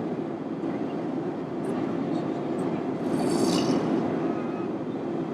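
A man snoring, one rasping snore swelling up about three seconds in, over the steady drone of an airliner cabin.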